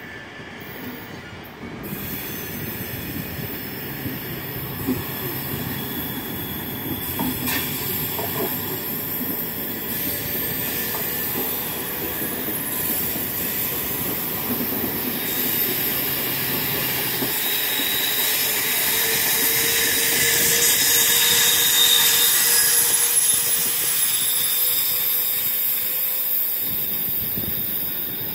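SBB double-deck passenger train rolling past along a station platform: steady wheel-on-rail running noise with hiss, growing louder towards the later part. Over the second half a faint whine rises slightly in pitch, and high wheel squeal comes in near the loudest point.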